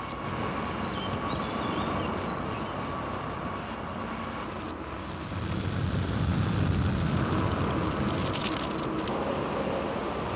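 A small Fiat Punto hatchback drives along a road, its engine and tyre noise growing louder as it passes close by about five seconds in, then easing off.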